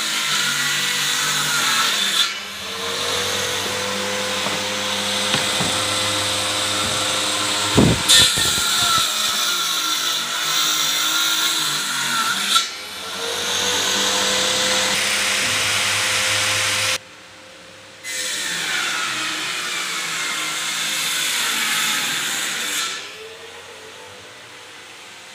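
Handheld electric power tool cutting a curve through a laminated particle-board desktop, its motor spinning up and then running at a steady pitch. There are a couple of loud knocks about eight seconds in. The tool stops near the end.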